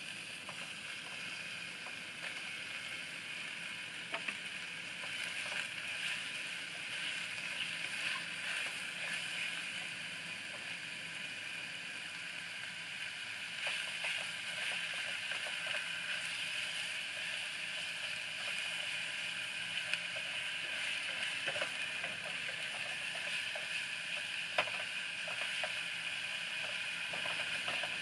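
Pork and kimchi sizzling steadily in a pot on a portable butane cassette stove, with the occasional click and scrape of chopsticks against the pot as the food is stirred.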